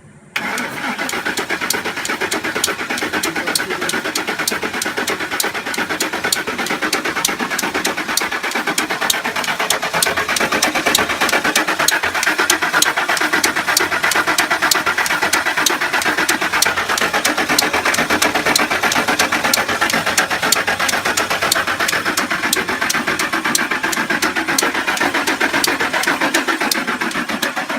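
Ford 5.4-litre three-valve V8 cranked over on the starter, with a loud, rapid, even clicking and slapping from the timing chain. The clicking comes from a failed timing chain tensioner that lets the chain slap around.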